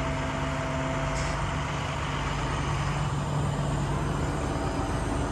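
A 2012 International truck's diesel engine running steadily, working the hydraulic hoist that raises the chipper dump box.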